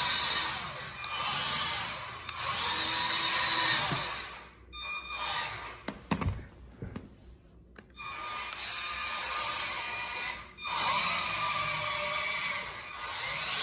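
Small electric motor and gearbox of a cheap 4x4 RC truck whining as the truck drives, in several bursts with short pauses between them.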